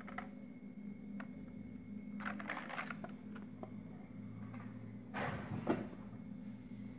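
Plastic blister packs and card backings of toy cars rustling and crinkling as they are handled and set down, in two short bouts, over a steady low hum.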